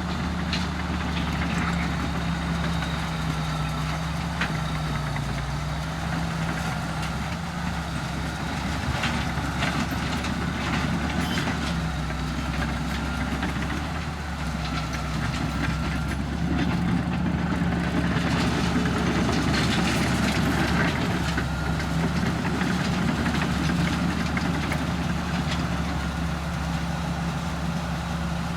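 Komatsu D61EX bulldozer's diesel engine running steadily, with scattered clanks and clicks over it; it gets louder for several seconds about two-thirds of the way through.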